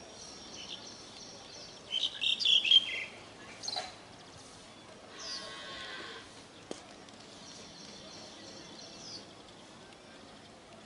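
Asian pied starling (pied myna) calling: a burst of loud, harsh, chattering notes about two seconds in, then a few shorter, softer calls, with thin high whistled notes in the background.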